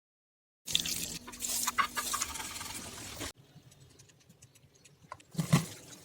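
Kitchen handling sounds: a utensil scraping and stirring food, with many small clicks, in short clips broken by edits. There is a short louder knock about five and a half seconds in.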